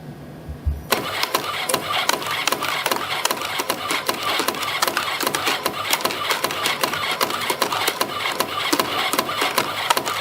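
YHM CF-310 CNC spring coiling machine starting up about a second in and then running steadily, coiling 1.0 mm wire into compression springs with a dense, rapid mechanical clatter of clicks.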